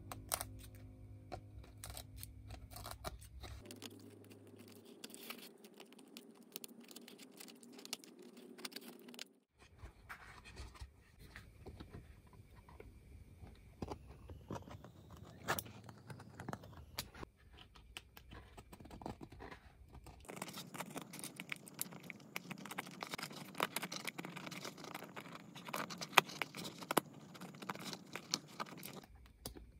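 Craft-knife blade scraping and cutting on the paper cone of a Yamaha NS-1000M's 30 cm woofer: irregular scratching with small ticks, first along the edge of the cloth surround, then around the glue line of the dust cap to free it. The sound jumps abruptly a few times.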